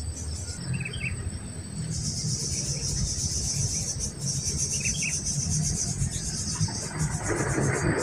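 Steady high-pitched chorus of insects, with two short faint chirps about a second and five seconds in over a low rumble. Rustling starts near the end.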